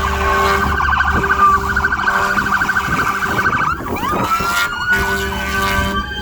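Emergency vehicle sirens in a fast warbling yelp. About four seconds in, the pitch drops and the siren switches to a slow rising wail. A steady low hum and rumble run underneath.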